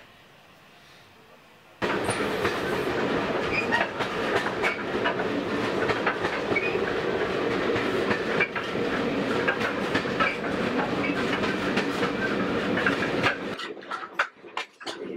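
Railway passenger coach running at speed, heard from inside: a steady rumble with the wheels clicking over rail joints. It starts suddenly about two seconds in and breaks into separate knocks near the end.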